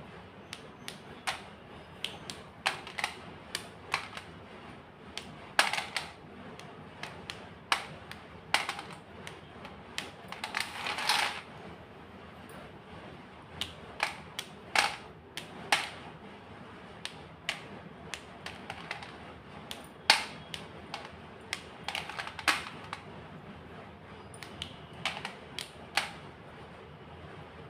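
White gym chalk being crunched: a series of sharp, irregular cracks and snaps, with a longer grinding crunch about eleven seconds in.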